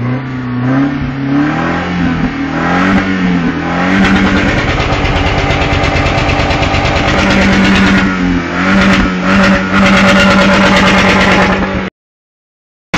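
Pickup truck engine revved hard in neutral. Its pitch climbs over the first four seconds and is held high, dips briefly about eight seconds in and climbs back, then cuts off suddenly about a second before the end.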